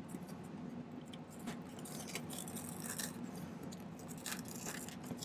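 Faint small clicks and scrapes of sterling silver wire pieces being handled and pressed into a soft magnesia soldering block, over a steady low hum.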